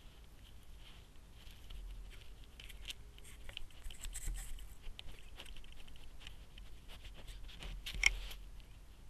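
Animal activity close to the microphone: scattered rustling and small clicks, busiest through the middle, with one louder sharp click about eight seconds in.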